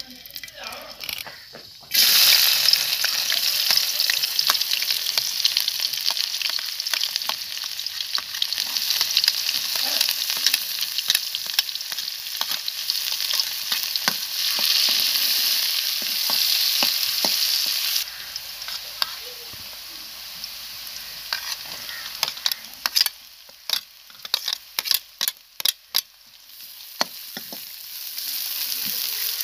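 Chopped garlic and onion dropped into hot oil in a large metal kadhai, hissing loudly all at once and then sizzling steadily as they fry. Later the sizzle falls quieter while a steel ladle clacks and scrapes against the pan several times, and the sizzle rises again near the end.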